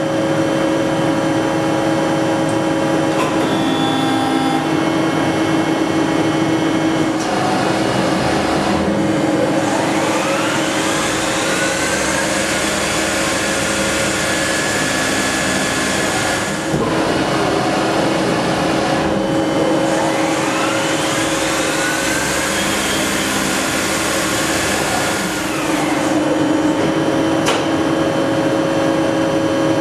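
CNC machine tool running with a steady machine hum. Twice, for several seconds each, a louder hiss comes in with a pitch that rises and then levels off, as the spindle speed changes during a cut.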